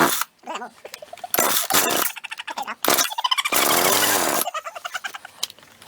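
Two-stroke Hitachi gas chainsaw being pull-started over and over, the recoil starter cord zipping out in short bursts; around the middle the engine catches and sputters for about a second before dying. The saw is hard to start.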